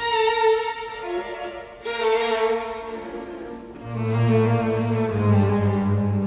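Background music led by bowed strings, with slow held notes and a low cello or bass line coming in about four seconds in.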